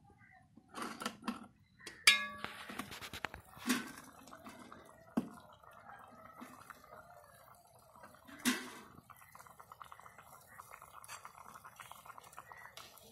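Aluminium pot lid lifted off a large cooking pot, a metallic clank with ringing about two seconds in, followed by a few more metal knocks. Later a faint, fine crackle as the fish soup simmers.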